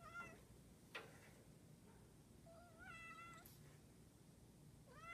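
Domestic cat meowing in a sweet, attention-seeking voice: three short meows, the middle one the longest, with one sharp click about a second in.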